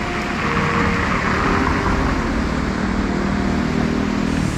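Motor vehicle engine running on a road, with steady road noise and a low engine hum.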